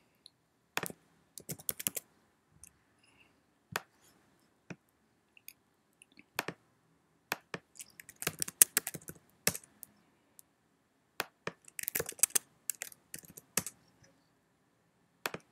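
Computer keyboard typing and clicking: scattered single clicks, with quick runs of keystrokes about eight and twelve seconds in.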